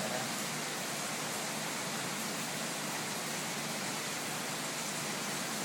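Steady, even rushing hiss of water circulating in a fish tank.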